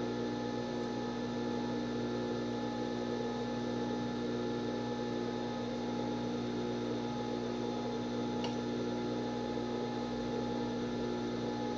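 Industrial overlock machine's motor running with a steady hum made of several fixed tones.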